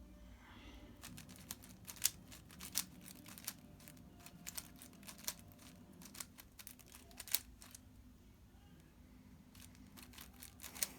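5x5 speed cube being turned by hand during a solve: irregular sharp plastic clicks as the layers snap round, with a short lull near the end.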